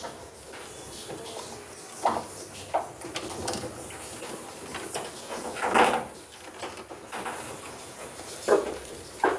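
A handful of short knocks and clunks, scattered a second or more apart, the loudest about six seconds in.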